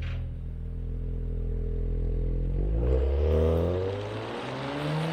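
Porsche Macan Turbo's twin-turbo V6 running at a steady low pitch, then accelerating about halfway through, its note rising steadily as the revs climb.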